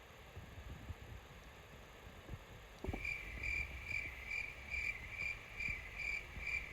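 Near quiet at first, then, about three seconds in, an insect starts chirping in an even rhythm of about three short, high chirps a second.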